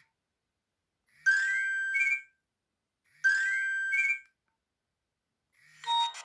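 Nokia 1600 ringtone played through the phone's speaker: a short electronic phrase, a quick rising glide into a held tone that ends in a brief high trill, sounding twice about two seconds apart. Just before the end a different, busier ringtone tune starts.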